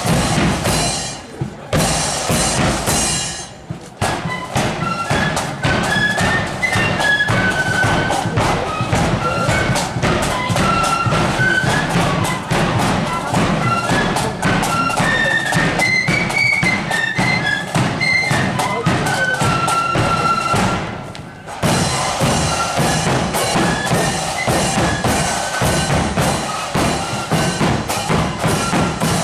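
Marching flute band playing: shrill flutes carry a melody over a bass drum and snare drums beating time. The music breaks off briefly near the start and again about 21 seconds in, then picks up again.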